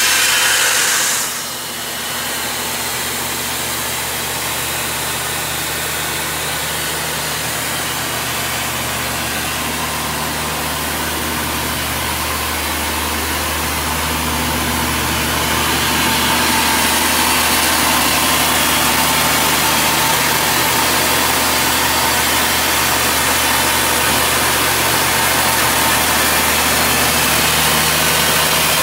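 Diesel engine of an Ingersoll-Rand T3W drill rig idling steadily, with a short loud hiss in the first second or so. The running grows a little louder and hissier about halfway through.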